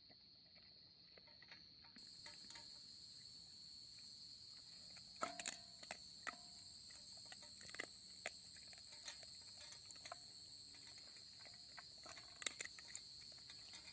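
Faint, steady trilling of insects at a high pitch, with a second, higher insect joining about two seconds in. A few soft clicks come through, a cluster of them a little after five seconds in and again near the end.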